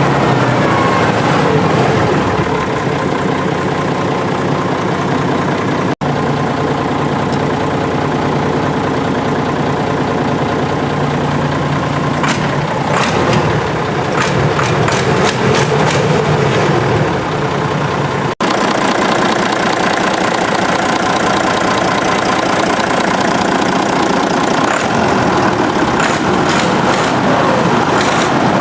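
Deutz D 10006 A tractor's air-cooled six-cylinder diesel engine running steadily, with clusters of sharp clicking rattles in the middle and near the end. The sound breaks off for an instant twice.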